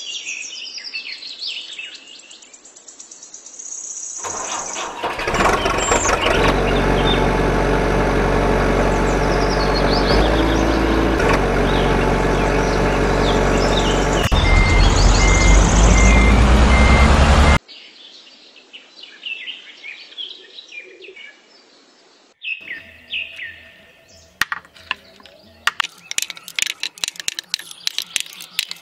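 Birds chirping, then a truck engine running loudly for about thirteen seconds and revving up near the end, cutting off abruptly. After more chirping, glass marbles clatter with quick sharp clicks as they drop into a wooden box.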